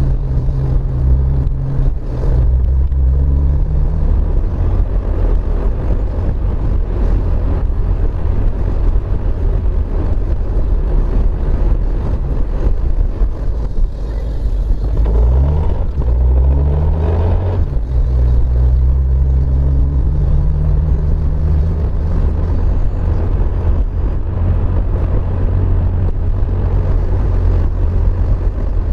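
Car engine running with steady road noise, heard from inside the cabin while driving on a wet road. About halfway through, the engine note climbs as the car speeds up.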